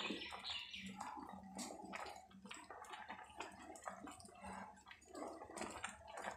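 Thick barley-and-milk porridge simmering in a kadhai while a spatula stirs it: faint, irregular wet plops and soft clicks from the bubbling mix and the spatula against the pan.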